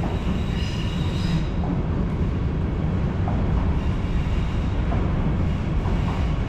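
A train rolling past on the railway bridge: a steady, heavy rumble, with faint high wheel squeals early in the pass.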